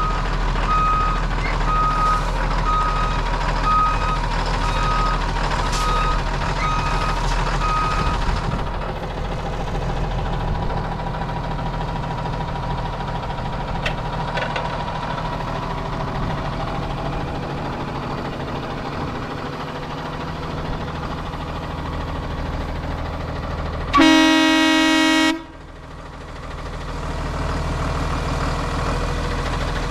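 2011 Blue Bird school bus with its engine running. Its reverse alarm beeps about once a second and stops about eight seconds in. Later the horn sounds once, a loud honk lasting just over a second.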